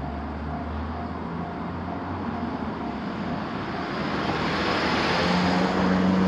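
Japanese level-crossing alarm bell ringing about twice a second, while a train approaches and passes with a rush of running noise that swells over the last couple of seconds.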